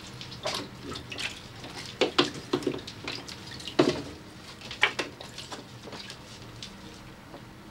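Water splashing and dripping as a photographic print is handled in a darkroom tray: a series of short, uneven splashes and knocks, fading out near the end.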